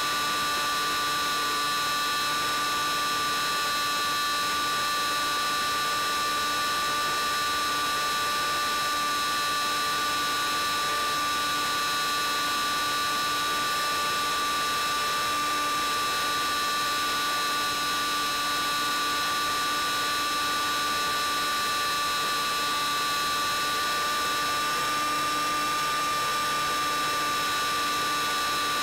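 Steady electrical hiss with several steady high-pitched whining tones over it: interference noise on the audio of an analog 5.8 GHz FPV video link.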